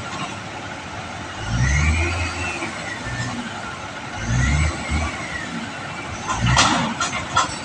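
Hyster reach stacker's diesel engine revving in short surges about every three seconds, each rev carrying a hydraulic whine that rises and falls with it. Near the end come a few sharp metallic knocks.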